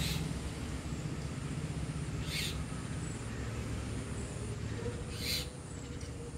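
Two short peacock (Indian peafowl) calls, about three seconds apart, over a steady low rumble.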